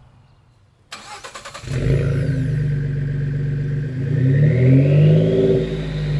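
Ford 3.5L EcoBoost twin-turbo V6 starting up: about a second in, a brief rapid crank, then it catches and runs loud through an aftermarket stainless cat-back exhaust. The engine then revs up and eases off, with a turbo whistle rising in pitch as it climbs.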